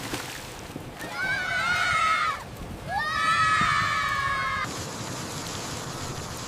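Horse whinnying twice, each call lasting about a second and a half and wavering in pitch; the first falls away at its end and the second stops abruptly. Steady rain hiss follows.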